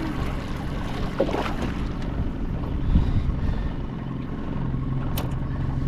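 Steady low hum of a boat's outboard motor running, with wind rumbling on the microphone.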